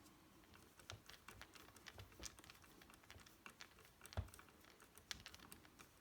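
Faint, irregular small clicks and ticks of a Torx screwdriver turning a screw into a gear shift knob, with one light knock about four seconds in.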